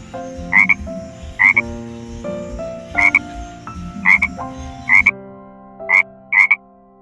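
Frog croaking: short, sharp croaks about once a second, with two in quick succession near the end.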